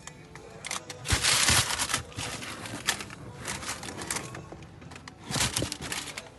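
Rustling and crinkling in several short bursts, typical of a sneaker and its wrapping being handled.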